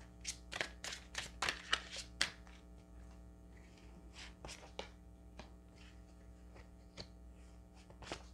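A tarot deck being shuffled by hand: a quick run of card snaps and clicks for about two seconds, then slower, scattered taps.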